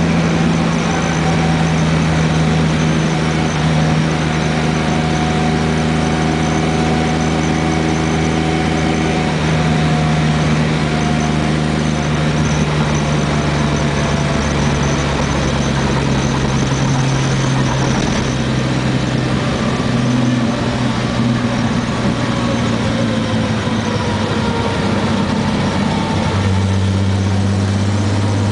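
1981 Ford Falcon driving, with a steady low hum and a fainter whine that drifts slowly in pitch, a noise the owner asks about as either a worn wheel bearing or a worn driveshaft U-joint.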